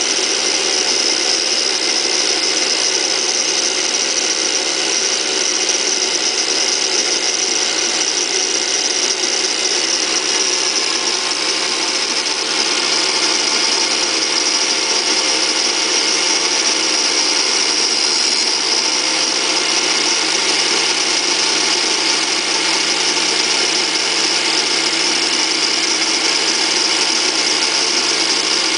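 Bosch angle grinder running with its abrasive wheel pressed against a hardened steel ball screw that turns in a small lathe, giving a steady, high grinding hiss without a break.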